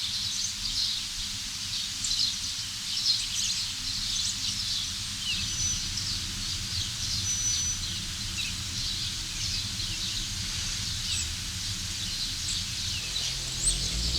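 Many small wild birds chirping and twittering, with short quick calls overlapping throughout and a short, high, steady whistle twice about six seconds in, over low, even background noise.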